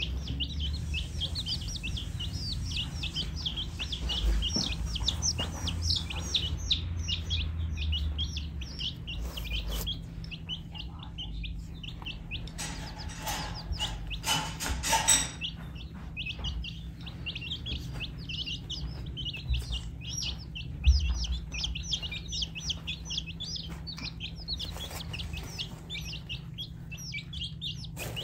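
A group of baby chicks peeping continuously, a rapid stream of short high-pitched calls that each fall in pitch. Around the middle the peeping thins for a few seconds under a scratchy noise.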